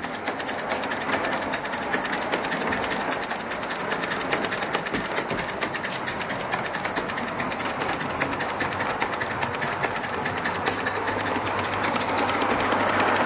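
Gas-fired live-steam model tank locomotive running fast along its track: a rapid, even rhythm of exhaust beats mixed with the clatter of its wheels and motion.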